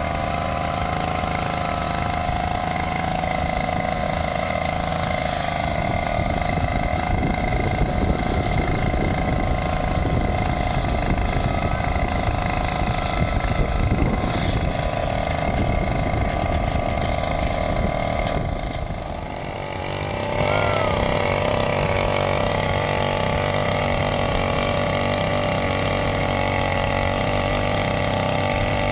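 Small brush-cutter engine running steadily on a wheeled grass-cutting rig. About two-thirds through, the sound changes to a backpack brush-cutter engine running steadily while it drives a small rotary tiller attachment in soil.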